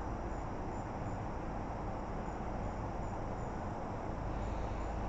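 Insects chirping, a faint regular pulse about twice a second, over a steady low hum of outdoor background noise.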